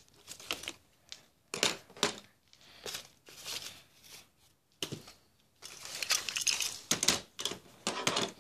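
Small die-cast toy cars and plastic storage drawers being handled: irregular clacks and rattles with rustling and scraping as toys are pushed aside, busiest near the end.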